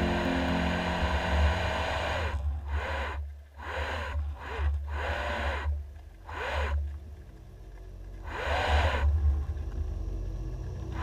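DeepTrekker ROV thruster motors heard through the GoPro's underwater housing: a whine that rises and falls in pitch in several short bursts as the thrusters speed up and slow down, over a steady low hum.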